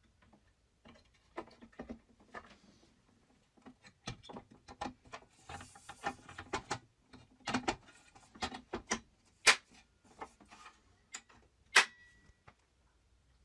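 Irregular clicks, clacks and knocks of hard parts being handled or adjusted, a few of them sharp and loud; no motor or blade is running.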